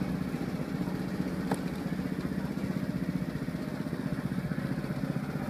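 A small engine running steadily at idle, with a fast, even pulse. A brief click about a second and a half in.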